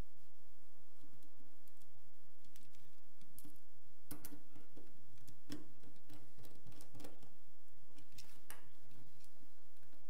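Keyboard case parts being handled and fitted together by hand: scattered small clicks and light knocks, becoming a busier run of knocks and clicks about halfway through.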